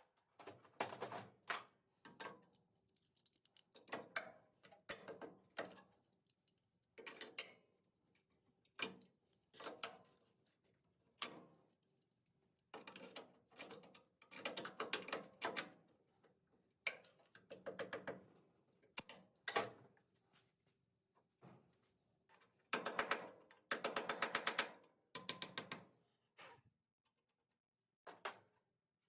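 Repeated short bursts of rapid metallic clicking and chattering from tool work on the Bronco's steel body, each burst lasting about a second, with short pauses between them.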